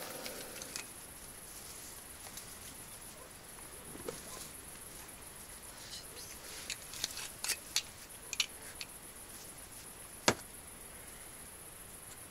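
Crickets chirring steadily in the night air, with scattered light clicks of cutlery and dishes at a meal table and one sharper knock about ten seconds in.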